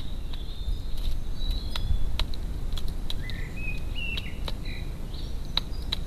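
Garden ambience: small birds chirping in short high notes and brief glides, with scattered sharp clicks over a steady low background rumble.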